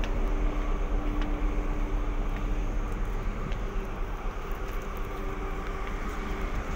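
Wind rumbling and buffeting on the microphone across an open ship's deck, steady throughout, with a faint steady hum underneath.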